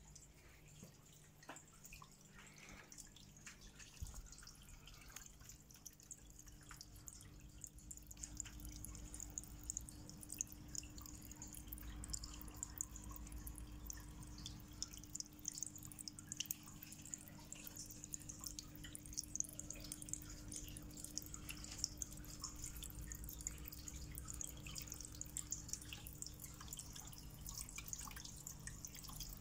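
Water trickling and dripping from a small aquarium waterfall decoration, many fine splashes in a steady stream, with a low steady hum underneath.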